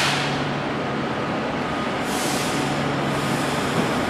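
Class 390 Pendolino electric train starting to pull away, with a steady low hum and two short hisses about two seconds apart.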